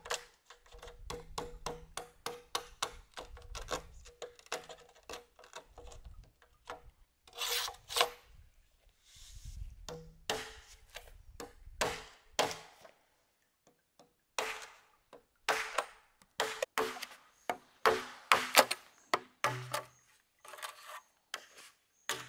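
A blade working green bamboo: runs of quick sharp chops, about three or four a second, mixed with a few longer scraping, rasping strokes, with a short pause partway through.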